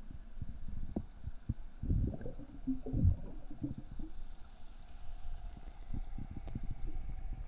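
Muffled underwater rumbling and gurgling heard through a submerged microphone in a biofloc fish tank, with irregular low thuds and bumps, a cluster of them about two to three seconds in.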